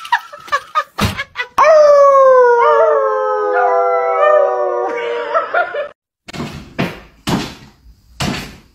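A small dog and people howling together: several long, slowly falling howls that overlap for about three seconds. Then a run of thumps, roughly one every half second, as a dog bounces on its hind legs on a wooden floor.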